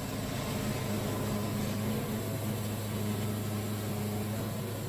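Wood-Mizer band sawmill running steadily, its engine giving an even, unchanging hum.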